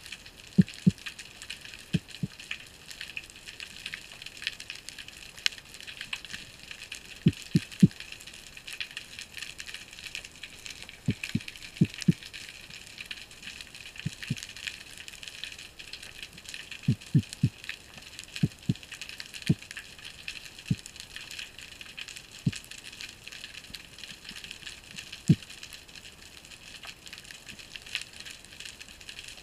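Underwater ambience heard through a camera's housing: a steady crackling hiss with scattered dull low knocks, often in twos and threes.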